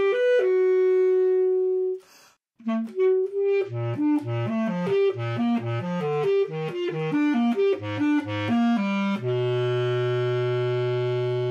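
Solo basset horn: a held note, a brief pause, then a run of quick detached notes leaping between low and middle pitches, settling about nine seconds in on a long held low note.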